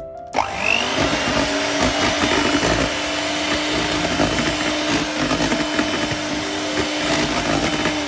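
Electric hand mixer switched on, spinning up quickly and running at a steady speed as it beats cake batter, then slowing down as it is switched off at the end.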